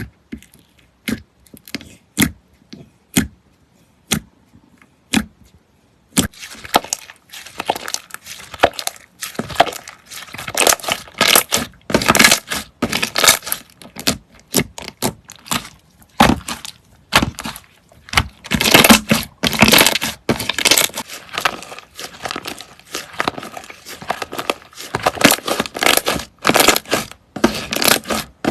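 Slime being squeezed and poked by hand: a few separate sharp clicks at first, then from about six seconds in a dense, continuous crackling and popping.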